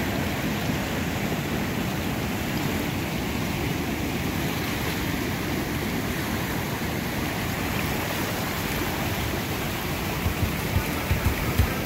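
Whitewater rapids rushing steadily over rock ledges, flowing hard. A few low thumps come near the end.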